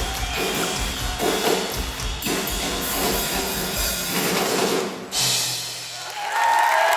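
Progressive rock band playing live in a large hall, with heavy drum hits and bass, breaking off abruptly about five seconds in. A new sustained chord starts near the end.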